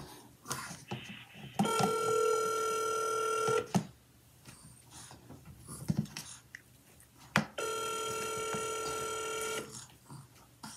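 Ringback tone of an outgoing phone call playing over a smartphone's speakerphone: two rings, each about two seconds long and about four seconds apart, while the call waits to be answered. A sharp click comes just before the second ring.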